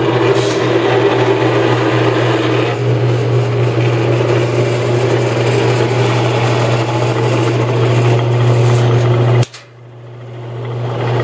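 Electric motor of a Jet 14-inch vertical bandsaw running with a steady hum. The blade is freewheeling and not being driven. About nine and a half seconds in, the sound drops away suddenly, then builds back up over about a second.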